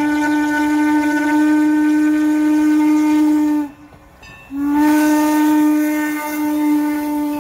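Norfolk & Western No. 475, a 4-8-0 steam locomotive, blowing its steam whistle as it passes, in two long steady blasts. The first cuts off about three and a half seconds in, and the second begins a moment later.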